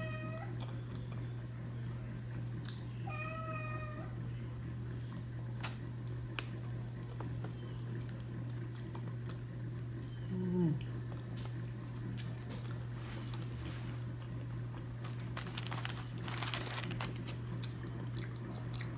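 A cat meows: one drawn-out, even-pitched meow about three seconds in, after the end of another right at the start. Under it runs a steady low hum, with a few light clicks and a short low falling sound later on.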